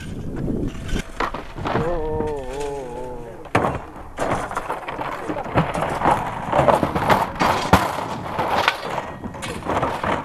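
A drawn-out, wavering human call about two seconds in. Then a sharp knock and a long run of irregular clattering and knocking of things on loose rocks.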